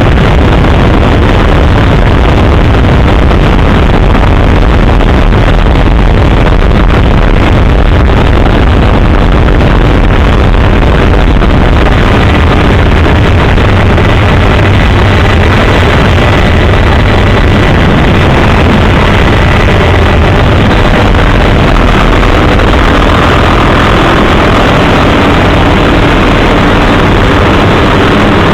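Helicopter engine and rotor noise, loud and steady, heard from on board.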